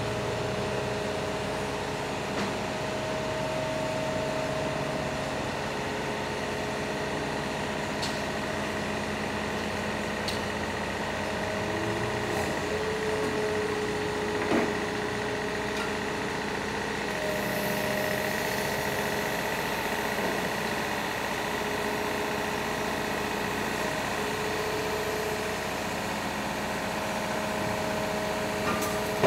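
Heavy all-terrain crane's diesel engine running steadily at idle, with steady whining tones over it and a single knock about halfway through.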